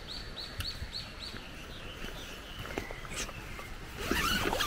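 A small bird singing a quick run of short, repeated falling notes, about four a second, that stops about a second in. A brief louder noise comes near the end.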